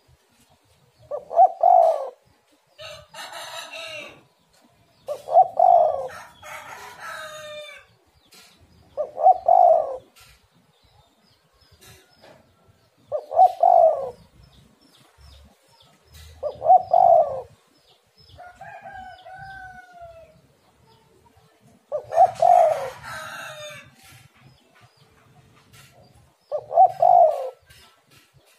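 Spotted dove cooing: a short low phrase of a few notes, repeated seven times about every four seconds, with other birds calling faintly in between.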